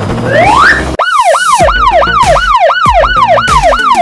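A rising whistle-like glide, then from about a second in an electronic police-style siren in a fast yelp, each sweep falling in pitch, about three to four sweeps a second.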